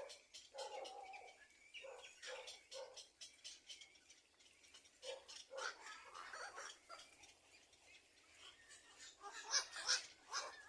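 Birds calling with short chirps and squeaks mixed with quick clicks and scratching, loudest near the end.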